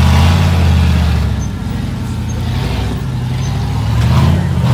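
Rock crawler buggy's engine revving hard as it climbs a steep rock ledge: a loud burst at the start that eases off after about a second, then builds again near the end.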